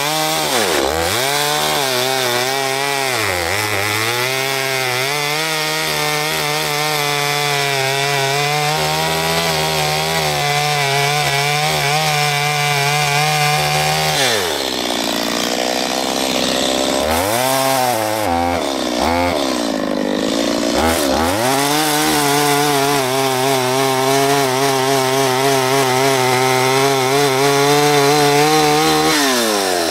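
Two-stroke chainsaw cutting into a hollow, rotten tree trunk, its engine held at high revs in the cut. About halfway through the revs fall away and the engine is blipped up and down twice, then held high again until it drops back just before the end.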